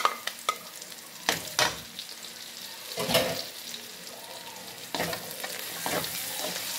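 Pork, garlic and onion sizzling in oil in a wok while a wooden spatula stirs, knocking and scraping against the pan. The sizzling grows louder about five seconds in.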